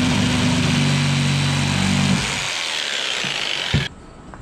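Corded jigsaw sawing through a hardwood dowel, its motor hum dropping in pitch under load, then the saw stopping abruptly a little before four seconds in, with a click.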